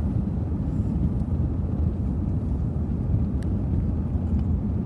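Steady low rumble of a moving car, heard from inside the cabin: road and engine noise.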